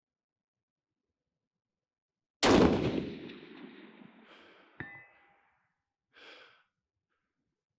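A single 6.5 Creedmoor rifle shot, a sudden loud crack that rolls off over about two seconds, followed about two and a half seconds later by a short metallic ring from a steel target hit at about 600 yards. A brief soft hiss comes near the end.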